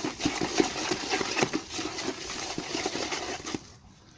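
A stick stirring a wet cement mix: continuous gritty scraping with irregular small knocks, stopping about three and a half seconds in.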